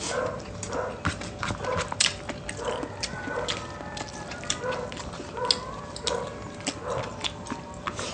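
Close-miked eating: rhythmic chewing and mouth smacking, about two chews a second, with many sharp clicks.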